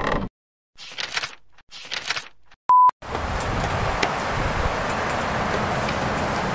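Old-film countdown leader sound effect: two short rattling bursts, then a single short beep about halfway through. After the beep comes a steady hiss with scattered crackles.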